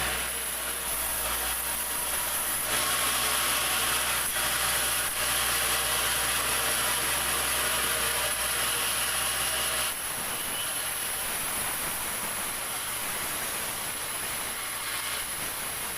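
Sawmill saw running and cutting through jackfruit wood, a steady mechanical noise that grows louder about three seconds in. About ten seconds in the low drone stops and the level drops, leaving a lighter steady noise.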